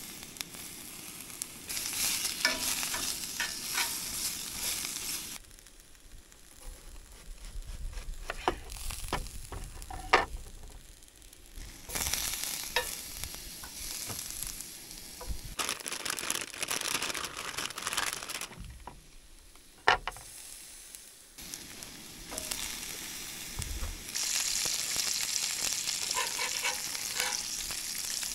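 Food sizzling in a pan as it is stirred, with sharp clicks and scrapes of a utensil against the pan. The sizzle comes and goes in stretches of a few seconds.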